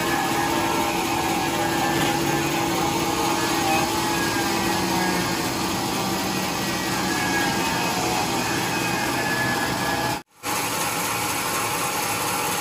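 Sawmill machinery running steadily: a loud motor hum with a few held tones over it. It cuts out for a moment near the end and then resumes.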